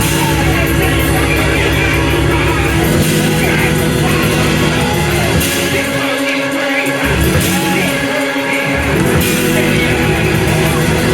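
Loud church music with held chords, a heavy shifting bass line and voices singing.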